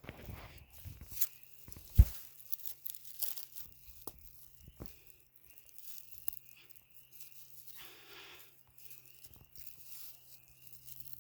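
Sticks and dry ground being handled: irregular crackling and snapping, with a single sharp knock about two seconds in and a short rustle near the end.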